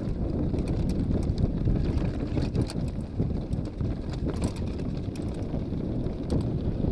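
Mountain bike descending a rocky gravel trail: wind buffeting the microphone over tyres rolling on loose stone, with scattered clicks and rattles from stones and the bike.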